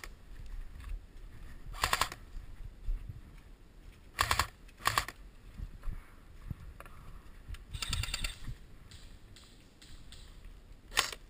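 Airsoft M16-style electric rifle firing five short full-auto bursts, the fourth a little longer, with the shooter's movement through dry leaves in between.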